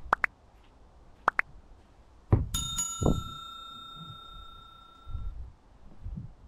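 Two pairs of short pops, then a bell-like ding that rings for nearly three seconds, from the sound effect of a subscribe-button animation. Dull thumps from handling the cardboard box sit under it, the loudest just before the ding starts.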